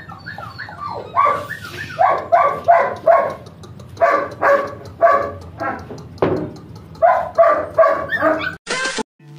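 A puppy barking: quick soft yips at first, then louder high barks, two to three a second, in three runs with short pauses between them.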